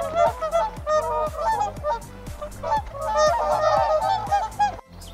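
A flock of geese honking: many short, overlapping calls, densest in the second half, dropping away briefly near the end. Background music with a quick steady beat runs under the calls.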